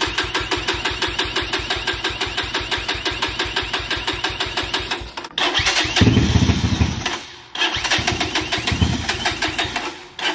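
Electric starter cranking a 250cc dirt bike engine in rapid, even pulses for about five seconds; then the engine catches and runs loudly and unevenly, dropping out for a moment about halfway through and again near the end.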